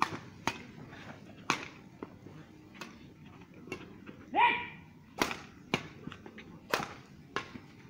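Badminton rally: rackets striking the shuttlecock, sharp cracks coming about every half second to second and a half. A short rising shout about four and a half seconds in is the loudest sound.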